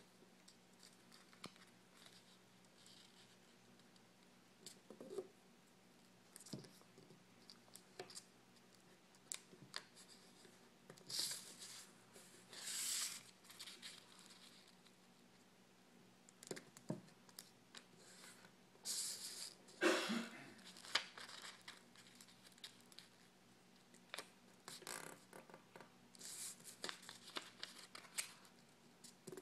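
A sheet of origami paper being folded and creased by hand: soft intermittent rustles and crinkles, with a few longer, louder swishes as folds are pressed flat.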